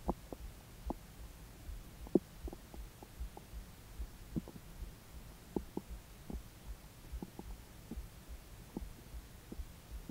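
Stomach and intestines gurgling during digestion of a steak meal: short squeaky gurgles scattered through, the loudest about two seconds in, over a steady low pulse.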